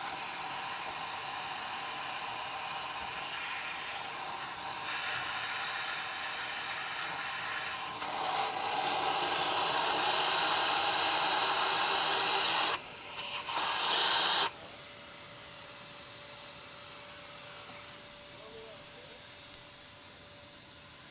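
Shop vac hissing as it sucks carbon cleaner and loosened carbon out of an engine intake port. The hiss grows louder partway through, cuts off, comes back in two short spurts, then stops, leaving a quieter steady hiss.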